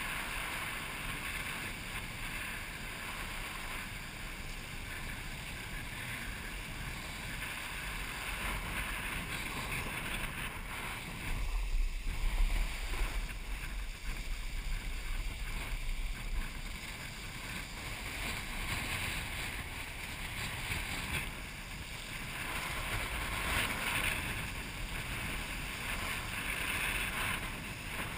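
Steady wind buffeting the microphone, with water rushing past a kiteboard as it rides across the water. There is a louder, deeper stretch of buffeting near the middle.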